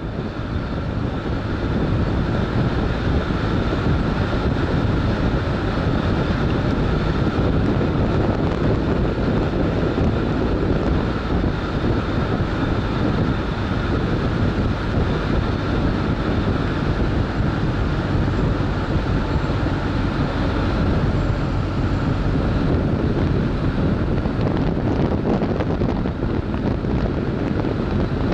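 Motorcycle running at a steady cruising speed on the open road, picked up by a camera mounted on the bike: heavy, steady wind rush on the microphone over the engine.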